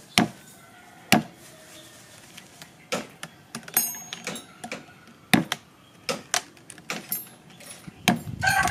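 Wood carving chisel struck into a wooden block with a mallet: irregular, sharp knocks about every second, with chips cut away. Near the end a rooster starts crowing.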